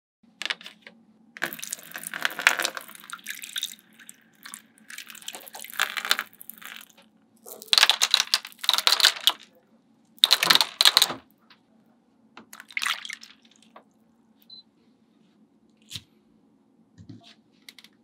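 Small white pebbles being dropped by hand into a shallow pond tray, landing in several short clattering bursts of a second or two each.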